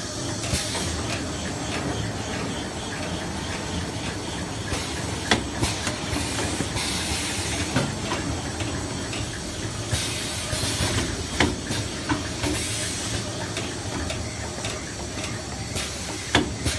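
Automatic toilet paper roll cutting and packing machine running, a steady mechanical noise broken by several short bursts of hiss and a few sharp clicks.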